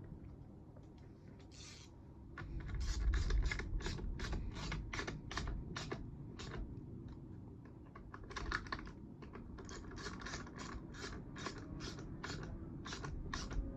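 Ratcheting hand tool clicking as screws are tightened into a chainsaw, in two runs of quick, even clicks at about three to four a second.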